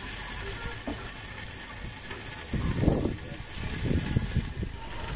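Western rock lobster (crayfish) sizzling on a stainless steel gas barbecue, a steady hiss, with a couple of low rumbling bumps about halfway through.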